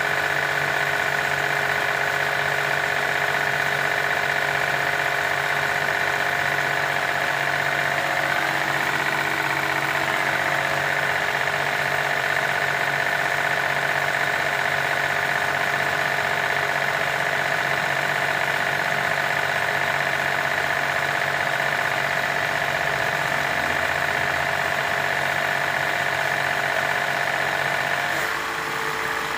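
A motor running steadily, with an even hum under a higher whine; near the end its tone shifts and it eases off slightly.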